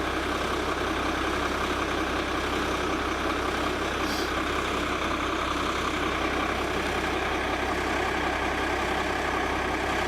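An engine idling steadily, a constant low hum with a hiss above it.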